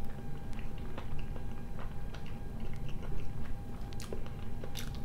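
Close-up chewing of a mouthful of mashed potato with peas, with many small wet mouth clicks. A few sharper clicks come near the end as the wooden spoon scoops from the bowl.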